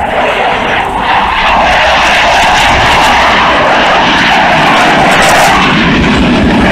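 Loud, steady jet noise from Blue Angels F/A-18 Hornet fighter jets flying a low pass; it swells about a second in.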